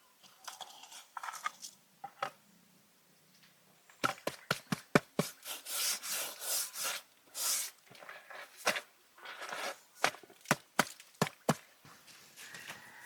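Knife work on a wooden cutting board: a quick run of sharp chops starting about four seconds in, then several rasping, sawing strokes, then scattered single knocks.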